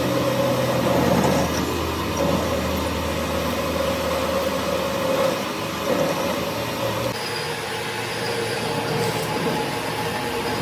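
Metal lathe running steadily with a mechanical hum and a steady whine; the sound changes abruptly about seven seconds in.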